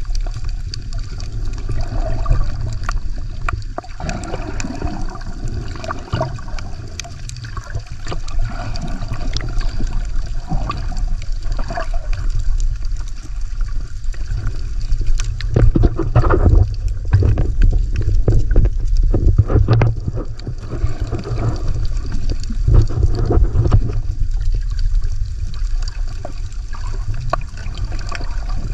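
Water heard with the microphone underwater: muffled sloshing and gurgling over a steady low rumble, with scattered sharp clicks, louder in the middle stretch.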